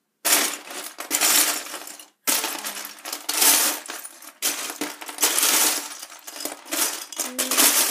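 Loose Lego bricks clattering and rattling in a large plastic storage bin as hands dig and sift through the pile. It comes in repeated waves of loud clinking, with a brief pause a little after two seconds in.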